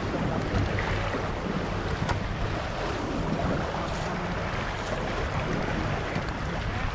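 Steady rush of wind on the microphone and water running past the hull of an Impulse 26 sailboat under sail, with a few faint clicks.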